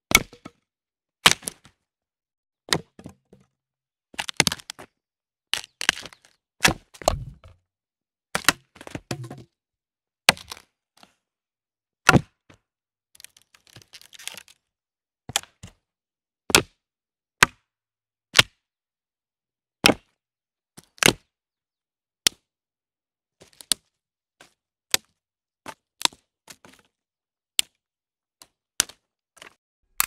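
A long series of assorted sharp snaps, one at a time with about a second of silence between most of them; a few near the start of the run are longer and crunchier, and a brief spell of small crackles comes about halfway.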